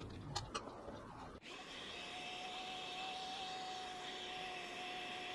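A couple of small clicks as the thickness planer's plastic side cover is worked off, then a faint, steady mechanical hum with one steady high tone from about a second and a half in.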